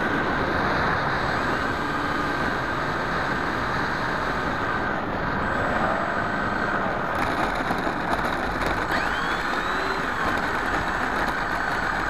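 FX61 flying wing's pusher propeller and motor with wind rushing over the onboard camera's microphone, a steady noise through a low approach and touchdown on a dirt strip. Faint pitch glides in the middle and near the end follow throttle changes.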